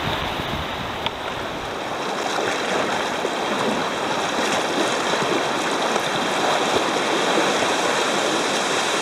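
Whitewater river rapids rushing steadily, a dense constant noise of water that grows a little louder about two seconds in.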